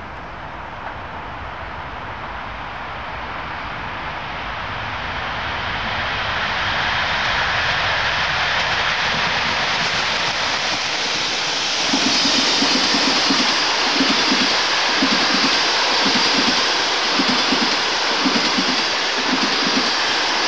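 A ChS7 electric locomotive hauling a passenger train approaches with a rumble that grows steadily louder, then passes about twelve seconds in with a sudden jump in loudness. Its carriages then run past at speed with a rhythmic wheel clatter about once a second.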